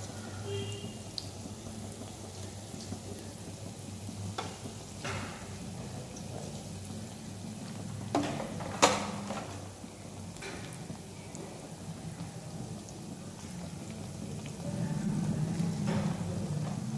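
Chicken pakoras deep-frying in a wok of hot oil: a steady sizzle and bubbling, with a few sharp clicks, the loudest about nine seconds in.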